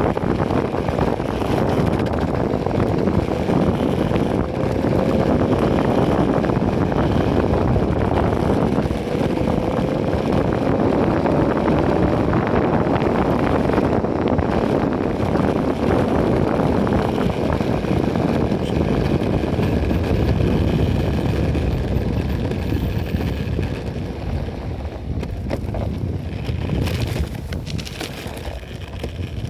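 Wind buffeting a phone microphone during a ride on an Enertion Raptor 2 electric skateboard: a steady, loud rushing noise. A faint tone slowly rises in pitch for several seconds in the first half. The noise drops a little near the end.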